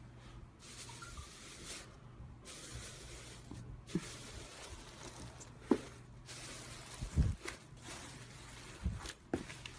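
Slime being pressed and stretched by hand: soft hissing crackle in stretches of a second or two, with a few sharp wet pops.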